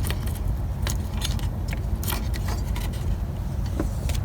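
Irregular small clicks and rattles of hands working a wiring connector and its rubber boot on a car starter in an engine bay, over a steady low rumble.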